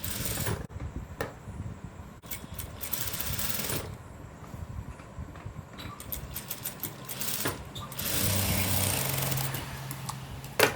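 Sewing machine stitching a seam in short runs: it starts and stops about three times, the longest run lasting about two seconds near the end. Clicks and handling noises come in the pauses, as the needle is stopped and the fabric turned at the neckline corners.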